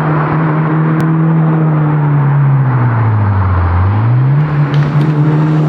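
Mitsubishi Lancer Evolution VIII's turbocharged four-cylinder engine running under way, its note steady, then falling smoothly as the revs drop about three seconds in and rising back up a second later.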